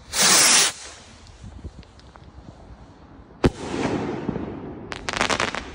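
A Master Ballistic Color Rocket firework launching with a short, loud whoosh lasting under a second. About three seconds later there is a sharp bang as it bursts overhead, with a rumbling echo, and near the end a quick run of crackling pops.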